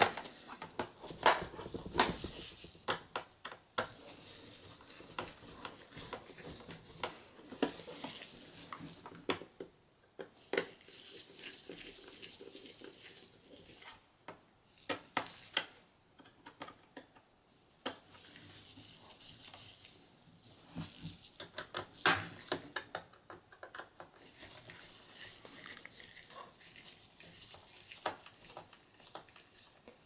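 Scattered clicks and taps of plastic being handled: a laptop's plastic bottom cover is set down and pressed into place, then a mini Phillips screwdriver turns its small screws. The loudest clicks come about a second in and again a little past the middle.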